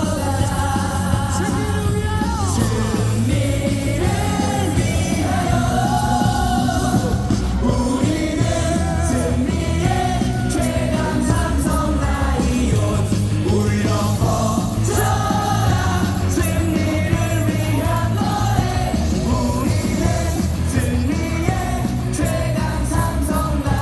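A stadium crowd singing a cheering song in unison over amplified music with a steady beat.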